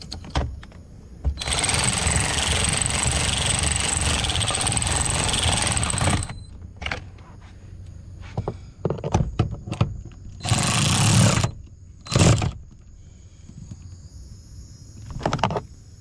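Power driver turning a 10 mm door-trim bolt through a long socket extension: one steady run of about five seconds, then two short bursts near the end, with scattered clicks and knocks between.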